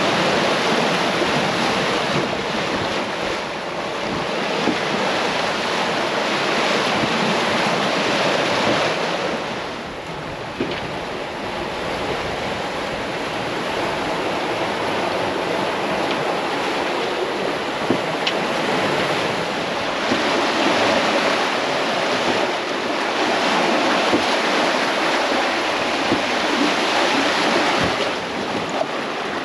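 Ocean waves and whitewater rushing past a sailing catamaran's hulls in big following seas, with wind buffeting the microphone. The rush swells and eases, dropping briefly about ten seconds in.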